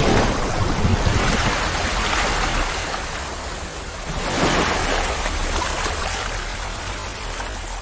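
Water splashing and rushing sound effect, surging at the start and again about four and a half seconds in, then slowly fading.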